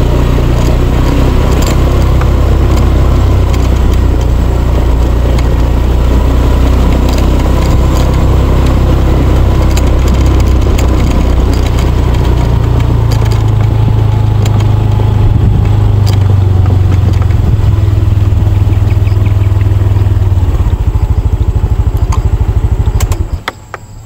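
Motorcycle engine running as the bike rides along a narrow lane, with wind noise on the microphone. The engine pitch shifts a little about halfway through, then it slows into a throbbing beat and drops away about a second before the end as the bike stops.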